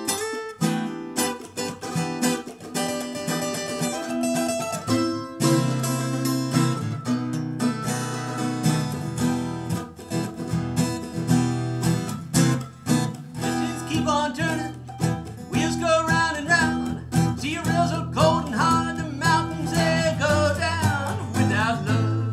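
Acoustic guitar and mandolin playing an instrumental break of a slow blues. From about two-thirds of the way in, the lead line turns to bent, wavering notes.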